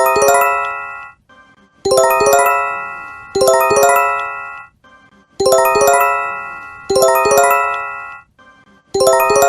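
Japanese J-Alert emergency alert chime, looping. Each chime is a quick rising run of bell-like tones that rings on and fades. The chimes sound in pairs, and a new pair starts about every three and a half seconds.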